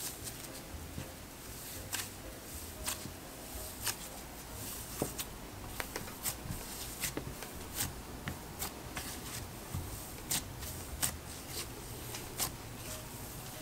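Gritty cloud slime being squished and poked by hand, giving soft, irregular crackling clicks and pops with a slushy sound.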